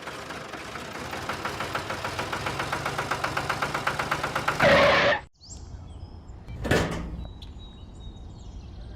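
Rhythmic mechanical clatter of a small motor-driven machine, about six to seven pulses a second and growing louder, that cuts off abruptly about five seconds in. A single short thump follows near seven seconds.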